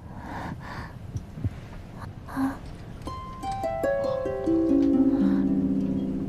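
Background soundtrack music. After a quiet start, a run of plucked string notes comes in about halfway through, each note lower than the one before, and the notes are left ringing.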